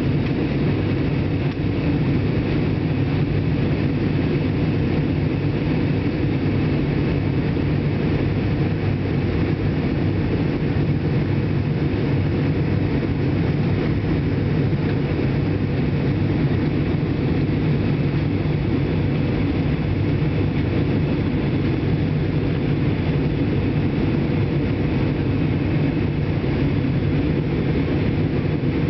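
Steady cabin noise of an airliner in flight on its descent: a constant low drone of engines and rushing air, with a few steady hum tones in it.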